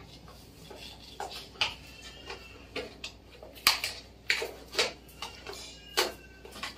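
About a dozen light, irregular clicks and taps from a small pack of incense cones being handled.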